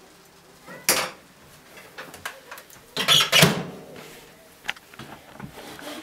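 Kitchen handling knocks and clatter: a sharp knock about a second in, a louder clattering bang around three seconds in, and a short click near five seconds.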